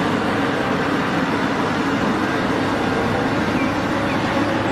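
Caterpillar 6015B hydraulic mining excavator's diesel engine running steadily under load while it dumps a bucket of sand into a haul truck, with a low hum under a dense, even noise.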